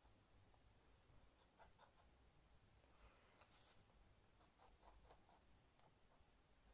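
Dip pen nib scratching faintly on paper while inking: a few short strokes, a longer scratch about halfway through, then a run of quick ticking dabs.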